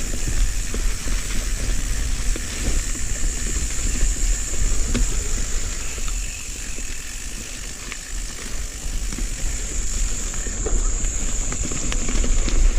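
Mountain bike being ridden over a wet, rooty trail: wind rumbles on the microphone and the bike knocks and rattles over bumps. A steady high-pitched drone carries on throughout.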